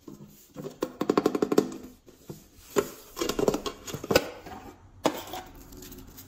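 Hard plastic unicorn-shaped case handled up close: fingernails tap and click on it in two quick runs, followed by a single sharper click about five seconds in.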